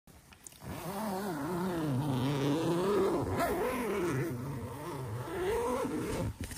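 A man's wordless voice: one long drawn-out sound whose pitch wavers up and down, lasting about five seconds.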